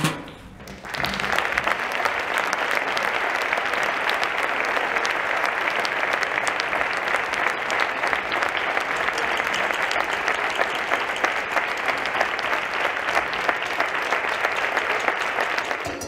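Audience applauding steadily, starting about a second in and going on to the end.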